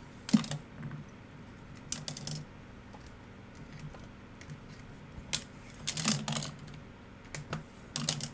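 Rigid plastic top loaders holding trading cards clicking and clacking against each other as a stack is handled and shuffled. The clicks come in irregular little clusters, with a sharp clack just after the start.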